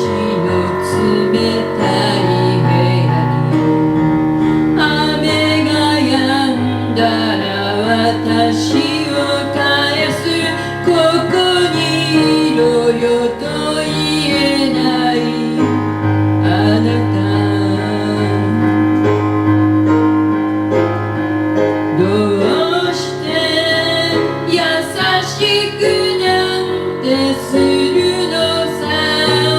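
Live pop ballad performance: piano with low notes held for several seconds under a woman's singing voice.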